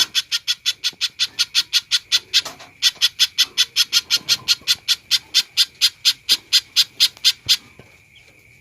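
Spiderhunter calling a rapid string of sharp, loud chips, about six a second, with a brief break about a third of the way in, stopping near the end. A faint steady high tone runs underneath.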